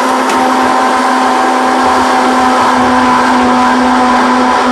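Electric countertop blender running at one steady speed, a motor hum under an even whirring rush.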